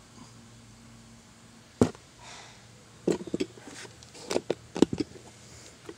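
Sharp knocks and clicks of hard objects: a single one about two seconds in, then a quick cluster from about three to five seconds, over a faint steady low hum.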